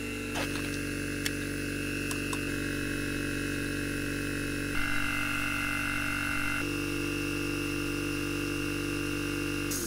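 Air compressor running with a steady hum while it fills its tank, its tone shifting twice partway through, then cutting off just before the end and winding down. There are a few light clicks in the first couple of seconds.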